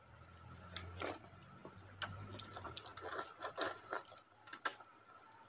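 Eating sounds from a shared bowl of Maggi noodles: forks clicking and scraping against the ceramic bowl, with noodles slurped and chewed. The sharp clicks come in irregular bursts, thickest from about two to five seconds in, over a faint steady high whine.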